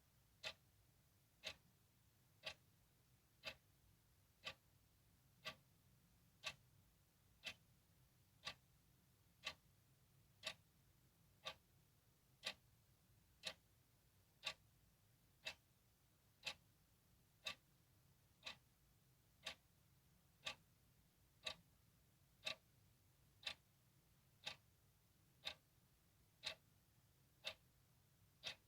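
A clock ticking steadily, one sharp tick a second.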